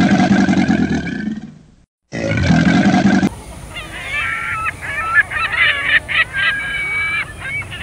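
Animal calls: a low, wavering call in the first second and a half, picked up again briefly after a short gap. Then many short, high calls follow one another in quick succession.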